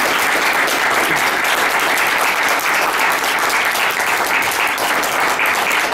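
Steady applause from an audience, many hands clapping at once.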